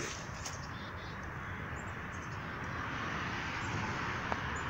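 Distant vehicle noise: a steady rushing hum that swells slightly past the middle and eases off near the end.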